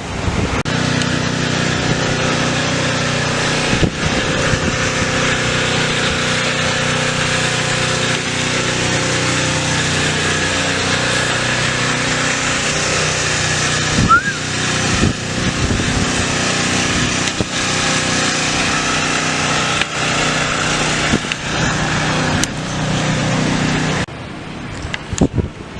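Steady vehicle engine hum under road and wind noise, holding at one level for most of the time, then dropping off sharply near the end.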